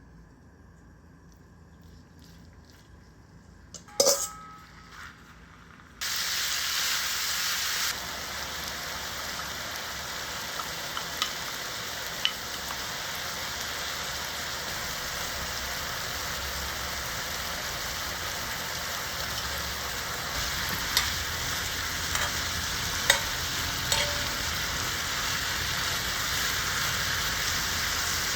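Food frying in a pan. A sharp knock with brief ringing comes about four seconds in, then a steady sizzle starts suddenly about two seconds later and continues, with occasional light clicks.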